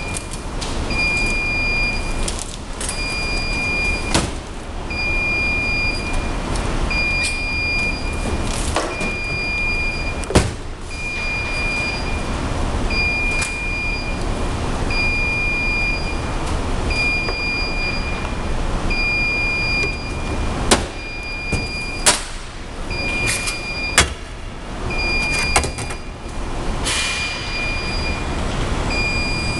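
A high electronic beep repeating about once a second, each beep just over half a second long, over a steady background noise, with a few sharp knocks scattered through it.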